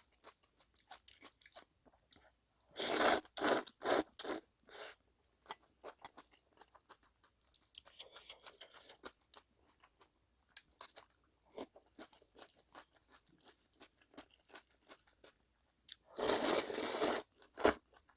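Close-miked eating: a steady run of small chewing clicks and crunches from fresh cabbage kimchi (geotjeori) and kalguksu noodles. Louder crunching comes in a cluster about three seconds in, and there is a longer, louder stretch of about a second near the end.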